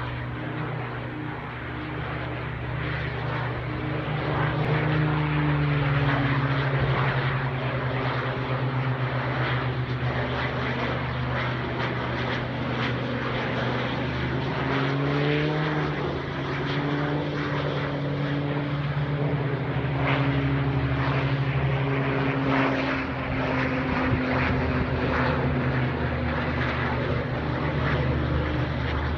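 Propeller aircraft engine running steadily, its pitch rising and falling slightly a few times, typical of a plane working over a wildfire.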